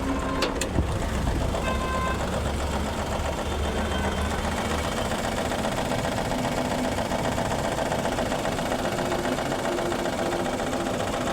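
Maruti Suzuki WagonR K-series petrol engine running rough and shaking steadily. It is misfiring with one cylinder not firing.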